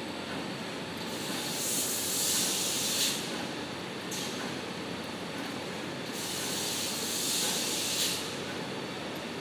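Steady running noise of a toilet paper converting and packing line. Twice, a long hiss like compressed air being released lasts two to three seconds, and each ends in a short sharp puff.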